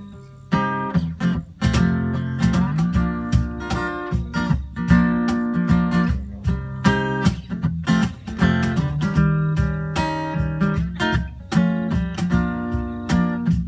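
Acoustic guitar strummed in a steady rhythm with a cajon keeping the beat: the instrumental intro of a live acoustic song, before the vocals come in.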